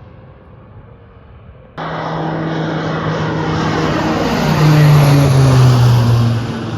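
Propeller aircraft passing close by, its engine tone dropping in pitch as it goes past. The sound starts abruptly about two seconds in, is loudest about five seconds in, then begins to fade.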